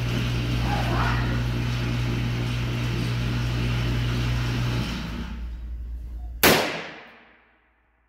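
A steady low hum that fades out, then a single shot from a Taurus Model 80 .38 Special revolver about six and a half seconds in, its sharp report echoing briefly off the concrete walls of an indoor range.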